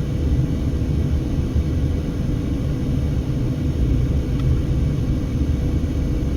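Steady low rumble inside a moving car's cabin: road and engine noise while driving slowly.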